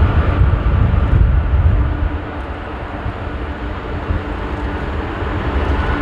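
Boeing 787-9's twin GEnx-1B turbofans running at low taxi power as the airliner turns onto the runway: a steady low rumble with a faint hum above it, louder for the first two seconds and then easing a little.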